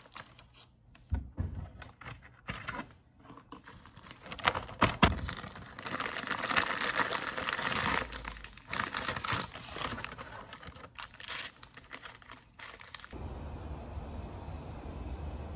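Plastic snack packaging being handled: a Chips Ahoy cookie pack and fun-size Butterfinger wrappers crinkling and rustling, with a few sharp snaps early on and dense crinkling in the middle. Near the end it cuts abruptly to a steady low background rumble.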